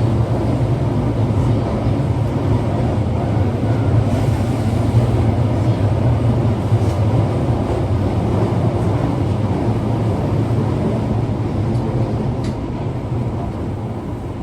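Osaka Metro Tanimachi Line car 22962, a car known for an unusual running noise, running through the tunnel: a steady low rumble that eases off slightly near the end.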